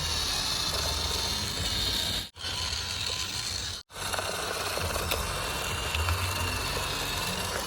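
Small electric motor of a toy RC vehicle running with a steady whine and gear rattle, cut off abruptly twice for a moment.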